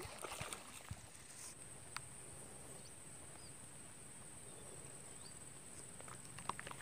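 Quiet outdoor ambience: a faint steady high hiss, a few soft clicks and a few faint short chirps.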